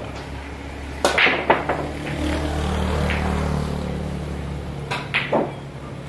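A 10-ball break shot: about a second in, the cue strikes the cue ball and it smashes into the rack, giving several sharp clacks as the balls scatter. This is followed by a low steady sound of balls rolling across the table, then a few more clacks of balls hitting each other or the rails near the end.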